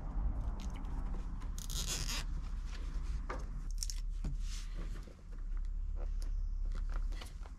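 A plastic cable tie being zipped tight around a fuel line and wire, a short ratcheting rasp about one and a half seconds in. Scattered small clicks and scrapes of hands working the line follow, over a steady low hum.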